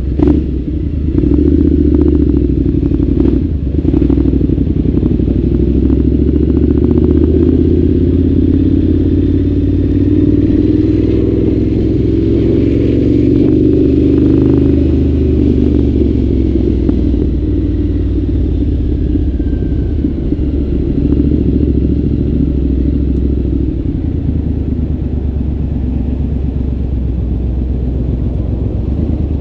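Triumph Scrambler 900's parallel-twin engine through an aftermarket ZARD exhaust, riding in city traffic. It gets louder as the bike pulls away about a second in, and rises in pitch briefly around the middle before settling to a steady cruise, with a few sharp clicks near the start.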